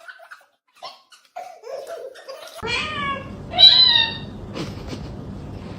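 A cat meowing twice, with two loud, drawn-out meows falling in pitch, about three and four seconds in.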